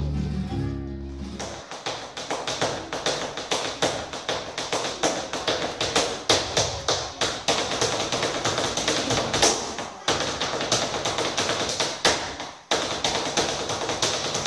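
Flamenco zapateado: a dancer's heeled shoes rapidly stamping and tapping on a wooden floor, many strikes a second. Acoustic guitar strumming stops about a second and a half in, leaving the footwork alone.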